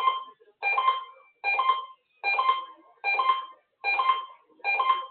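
Electronic alert chime ringing over and over, about once every 0.8 seconds. Each ring is a chord of several tones that starts sharply and fades before the next. It is played as an attention signal in an emergency alert system test.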